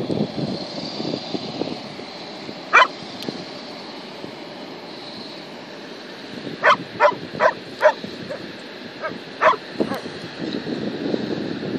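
A dog barking: one bark about three seconds in, a quick run of four barks past the middle, and a couple more near the end, over wind buffeting the microphone.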